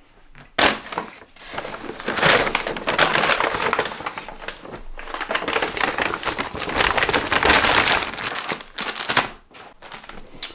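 Brown paper mailer and its crumpled paper packing being rustled and scrunched by hand, a dense crackling that starts sharply about half a second in and thins out near the end.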